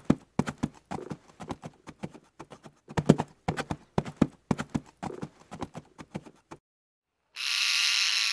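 Hoofbeats: a quick, irregular run of sharp knocks that stops about six and a half seconds in. Near the end comes a burst of hissing noise lasting about a second.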